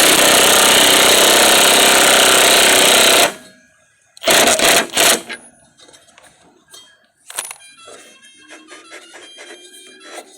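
Impact wrench hammering in one long burst of about three seconds, then two short bursts, fastening a nut on a mower-deck spindle. Light metallic clinks and ticks follow.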